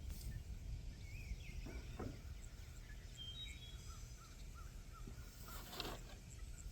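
Faint outdoor ambience: a steady low rumble with a few short bird chirps, and a couple of brief noises around the second and near the end.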